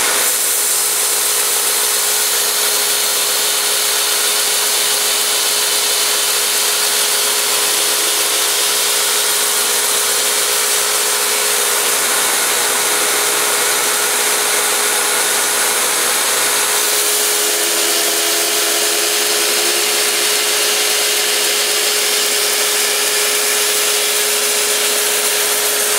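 Bader 3 belt grinder running, its slack belt section grinding the edge of a large steel Bowie knife in steady sharpening passes: a constant abrasive hiss over a steady motor hum. A coarse 220-grit belt is on the grinder.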